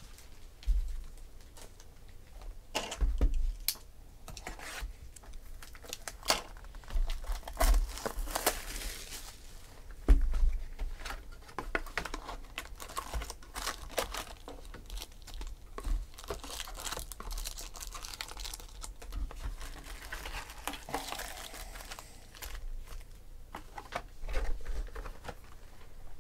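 A Topps Chrome football hobby box being torn open and its foil-wrapped card packs handled and stacked: crinkling, rustling and tearing, with scattered sharp taps and clicks.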